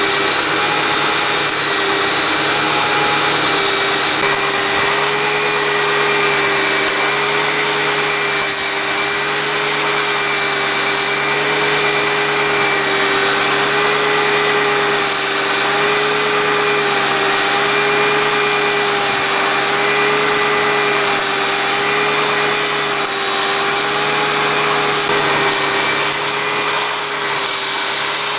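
Hitachi EX200 excavator's diesel engine and hydraulics running steadily, with a high-pitched whine that wavers slightly in pitch.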